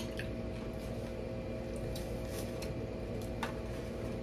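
Cooked shrimp being cracked and peeled by hand, a few short sharp shell cracks with soft wet squishing between them, over a steady hum.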